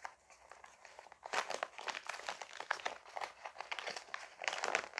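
A white envelope being torn open by hand, a run of crackling, crinkling tears that starts about a second in and is loudest near the end. The envelope is stubborn and hard to tear.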